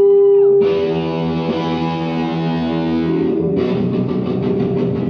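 Distorted electric guitar played loud through an amp: a held, steady feedback tone, then a chord struck about half a second in and left ringing, then rapid strummed chords from about three and a half seconds in.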